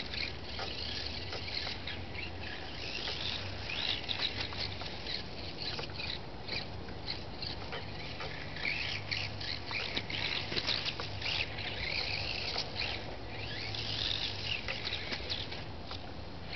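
Birds chirping and twittering in quick, repeated short calls, over a steady low hum.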